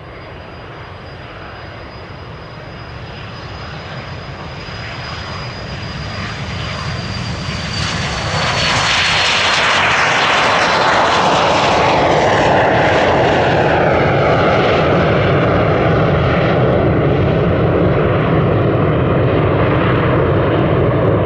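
Pilatus PC-24 business jet taking off, its twin Williams FJ44-4A turbofans at takeoff power. A high whine grows louder as the jet approaches and drops slightly in pitch as it passes about eight to nine seconds in, then gives way to loud, steady jet noise as it climbs away.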